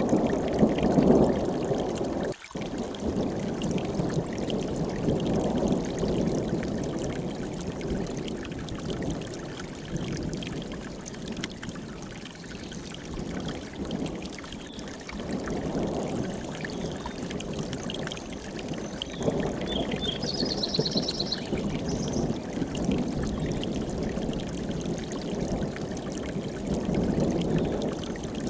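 Mountain stream rushing over rocks, a steady low watery rush that swells and ebbs. A few short, high bird chirps come about twenty seconds in.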